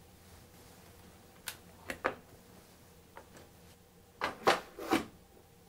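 Hard-cased tools handled: a few light clicks and taps, then a cluster of louder knocks about four seconds in as the black micrometer case is set down into the steel tool chest drawer.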